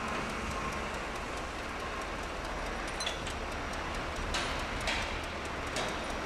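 Diesel engine of a wheel loader running steadily, with a few light knocks in the second half.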